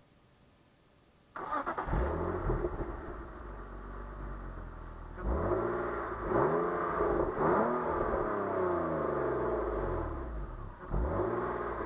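BMW 323Ci's 2.5-litre straight-six on its stock exhaust starting up about a second in and settling to idle, then revved several times, each rev rising and falling back.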